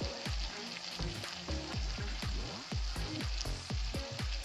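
Okra and chicken curry sizzling in an uncovered pan, a steady frying hiss, with background music carrying a regular pulsing beat underneath.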